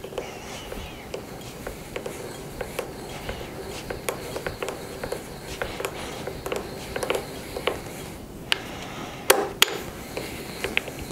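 Drill boring a peg hole through the wood of a mortise, with irregular clicks and knocks and two louder knocks near the end.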